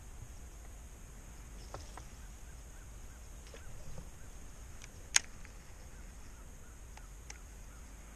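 Quiet open-water ambience with a few light clicks and knocks from fishing gear being handled aboard an inflatable boat, the sharpest click about five seconds in, and faint distant bird calls.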